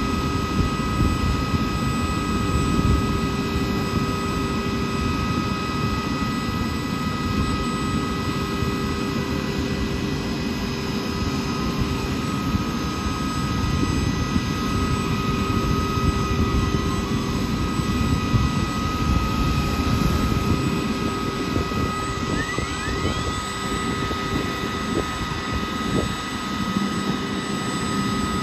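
Boeing CH-47 Chinook's auxiliary power unit, a small gas turbine, running with the rotors still: a steady high whine over a low rumble. A faint rising whine joins it about 22 seconds in.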